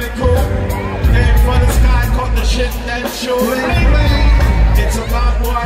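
Live reggae band playing with a heavy bass line and drums, and a man singing into a microphone over it.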